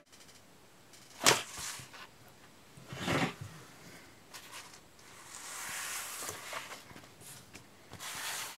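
A sheet of skateboard griptape being handled and laid on a wooden desk: a sharp knock about a second in and a duller thump a couple of seconds later, then a longer rustling scrape of the sheet.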